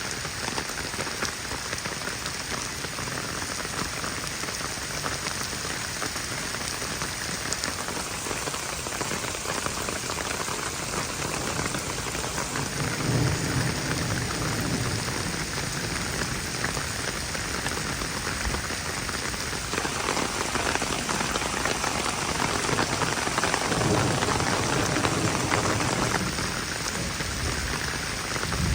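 Heavy rain falling steadily, with low rumbles of thunder rolling in about halfway through and again twice more towards the end.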